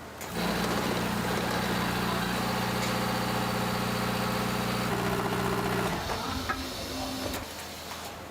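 A machine motor starts abruptly and runs with a steady, even hum for about six seconds, then changes pitch and dies away near the end.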